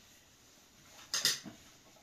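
Metal spoon clinking against the food pan and plates: a quick double clink about a second in.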